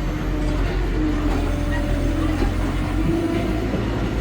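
Diesel engine of heavy earthmoving equipment running steadily with a low hum.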